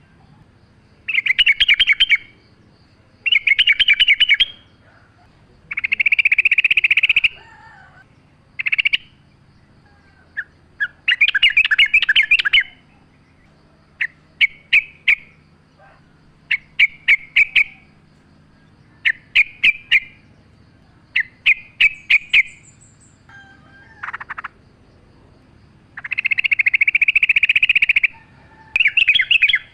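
Yellow-vented bulbul (trucukan) singing: a string of rapid, bubbly chattering phrases, each a second or two long, repeated over and over with short pauses, some phrases only a few quick notes. A faint low steady hum runs underneath.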